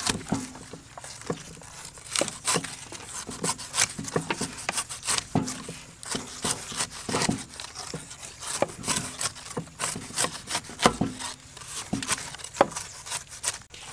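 Knives and a cleaver cutting fresh pineapples: a quick, irregular run of crisp slicing and scraping through the rough rind, with the cleaver cutting over a wooden chopping block.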